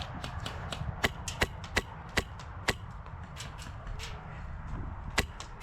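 Airsoft guns firing single shots in an exchange of fire: sharp cracks at an uneven pace. The loudest run of about five shots comes from about a second in, with fainter, more distant shots between and a louder pair near the end.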